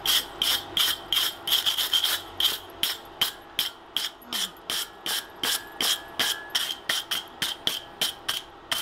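Hand hammer striking a glowing wrought-iron hammer head on the anvil, forging it hot with steady blows about three a second, each blow ringing.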